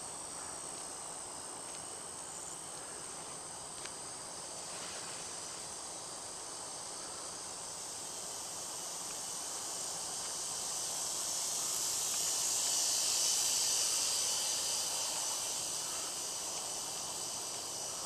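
Evening chorus of crickets and other insects: a steady, high, unbroken trill, swelling a little louder for a few seconds past the middle.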